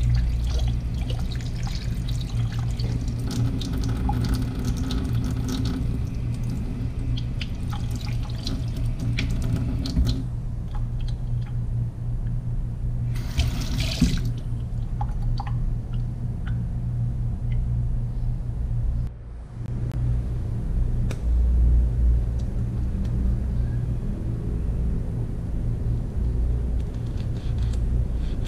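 Tap water running into a stainless steel sink and splashing over hands rinsing a small fish, over a steady low hum. A short louder splash comes near the middle, and the water sound stops abruptly about two-thirds of the way in.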